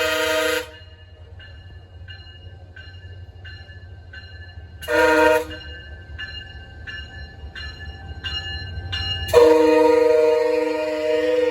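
Multi-chime locomotive horn blowing: a long blast that ends about half a second in, a short blast near the middle and another long blast starting near the end, the long-long-short-long pattern sounded for a grade crossing. Between the blasts a bell rings steadily, about one and a half strikes a second, over a low rumble from the train.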